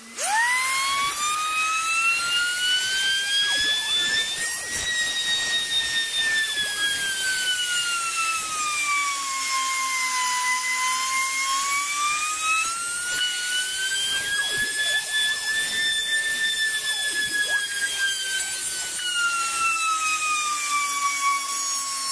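Electric palm sander switched on and whining up to speed, then running as it is pushed over a plywood panel. Its pitch slowly sags and climbs back over several seconds.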